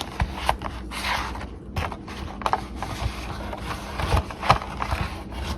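Handling noise as a folding multi-tool is pushed and worked into a nylon belt pouch: irregular scraping and rustling with scattered small clicks.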